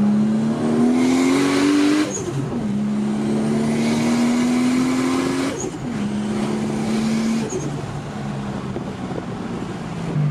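Turbocharged Nissan RB25DET Neo straight-six heard from inside the cabin, pulling hard under boost: the revs climb, drop at a gear change about two seconds in, climb again and drop at another shift about five and a half seconds in, then ease to a steadier cruise. A hiss rises over the engine while it is on boost.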